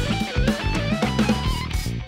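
Stratocaster-style electric guitar playing a fast single-note shred lick, the notes moving quickly up and down, over a backing track with regular low drum hits.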